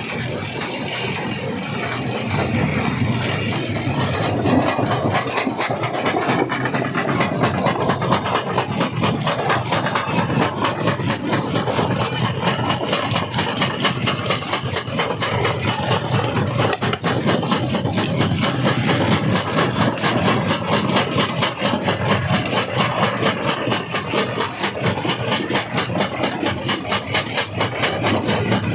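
Quarry stone-crushing machinery running steadily: a loud mechanical drone with a fast, even pulse. It grows fuller in the higher range about four seconds in.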